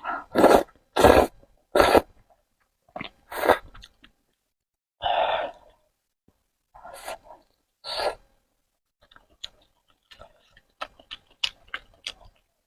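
Close-miked eating of spicy Korean noodles: a string of loud, short slurps in the first eight seconds, then soft, quick chewing clicks.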